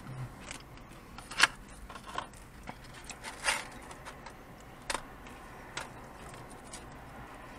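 Close-up eating and food-handling noises: a scatter of short, sharp clicks and crinkles, the sharpest about a second and a half in and others every second or so after.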